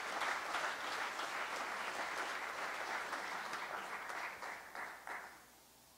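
Congregation applauding, a dense patter of many hands clapping that dies away about five seconds in.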